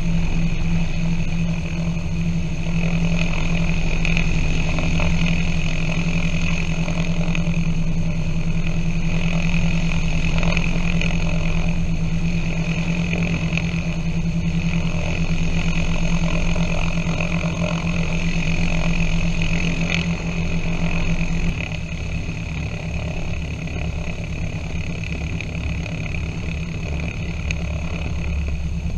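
Piper PA-23 Apache's piston engines and propellers running at low power on the ground, a steady drone; about three-quarters of the way through the sound drops slightly and the low rumble changes.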